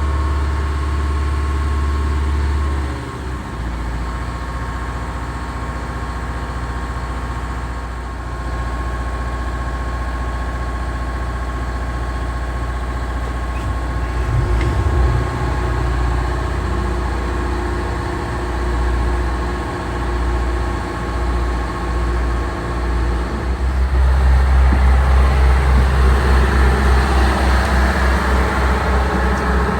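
Diesel boat engines running steadily, with a strong low hum. The sound dips about three seconds in and grows louder and fuller from about 24 seconds in.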